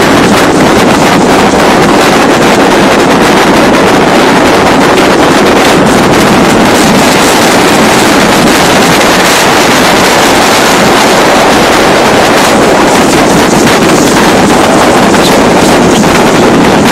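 Loud, steady rush of wind buffeting the microphone and water hissing and spraying past the hulls of a 30-foot Shuttleworth trimaran under sail at speed.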